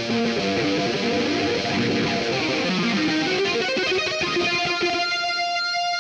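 Distorted electric guitar from GarageBand's Hard Rock smart guitar, played as quick runs of single notes from a minor blues scale, with a few held notes.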